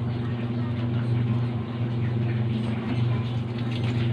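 A steady low hum with a hiss over it, holding at a constant level, from the cooker under a steaming pot of soup.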